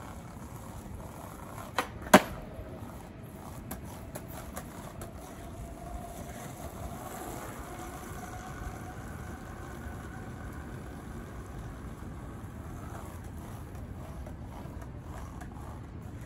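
A skateboard's tail snapping on the pavement, then the board clacking down a moment later, the two sharp knocks of a trick attempt; a few lighter clacks of the board follow, over a steady low outdoor hum.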